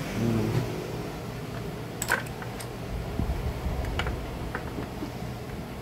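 A few light plastic clicks and taps from stiff wire connectors being worked loose from a mower handle's switch wiring, over a steady low background hum.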